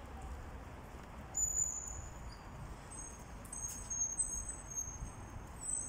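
Outdoor night ambience: a steady low rumble, with thin high-pitched tones that come and go, the first at about one and a half seconds in and more over the second half.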